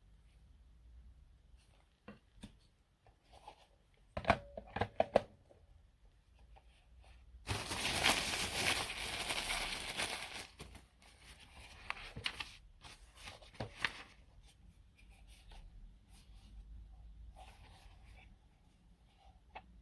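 Handling noises: scattered clicks, a quick cluster of sharp clicks and knocks about four seconds in, then a few seconds of loud rustling or tearing, followed by lighter rustles and clicks.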